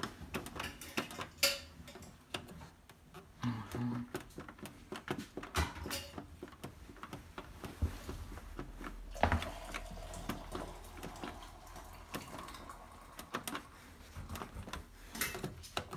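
Irregular clicks and knocks from the programme selector dial and controls of an integrated washing machine being turned and handled, with a faint low hum in the second half.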